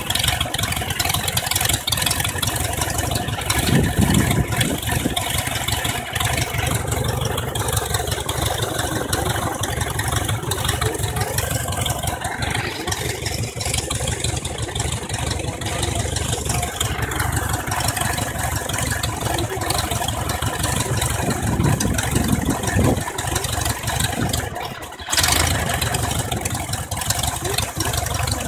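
Rebuilt Lycoming O-320 air-cooled flat-four aircraft engine running steadily on a test stand with its propeller turning, during its run-up. The level dips briefly near the end, then comes back.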